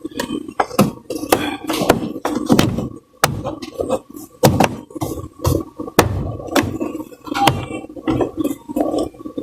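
Door panel's plastic retaining clips clicking and popping as the panel is pried off the door with a trim removal tool. There are many sharp, irregular clicks and knocks.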